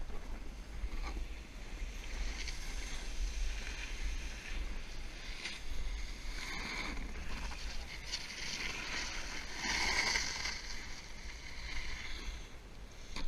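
Snowboard sliding and carving down packed snow: a continuous scraping hiss that swells with each turn, loudest about ten seconds in, over a low rumble of wind on the microphone.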